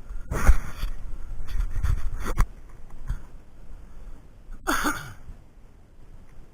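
A player's heavy breathing mixed with rustling and a few sharp clicks from moving through undergrowth, with two louder breathy bursts about half a second in and near five seconds in.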